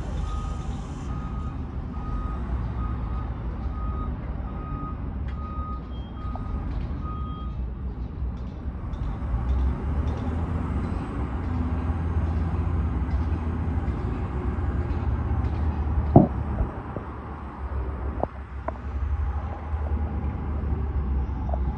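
A vehicle's reversing alarm beeping at a steady pace, about one and a half beeps a second, stopping after about seven seconds, over a constant low engine rumble from site machinery. One sharp knock, the loudest sound, comes about sixteen seconds in, with a few lighter clicks after it.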